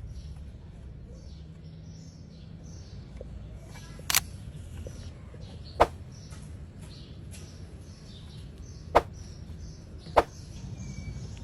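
Four sharp, separate clicks spaced one to three seconds apart over a steady low hum.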